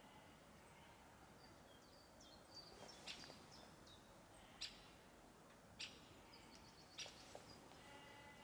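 Faint high, short songbird chirps scattered through the quiet, with four sharp clicks spread through the second half and a brief run of quick notes near the end.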